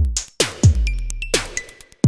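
Electronic background music with heavy bass-drum hits whose pitch drops, and clicks between them.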